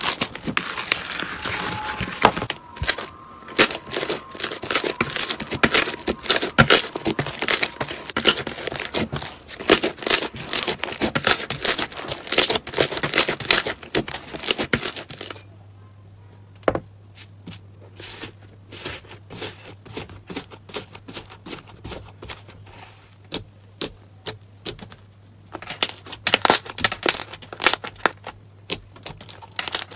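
Hands squishing and pressing slime, giving dense crackling and popping clicks as air pockets burst. About halfway it turns quieter, with scattered pops over a steady low hum, and the busy crackling returns near the end.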